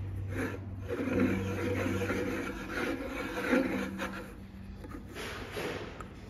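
Intake silencer being screwed by hand onto a piston air compressor's cylinder head: irregular rubbing and scraping as it turns on the threads.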